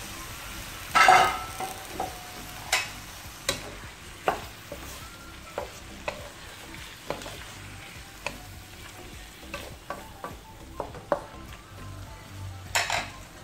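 Whole shrimp sizzling in melted butter and garlic in a stainless steel wok, with many sharp clicks and knocks as a wooden spatula stirs them against the pan. Louder bursts come about a second in and again near the end.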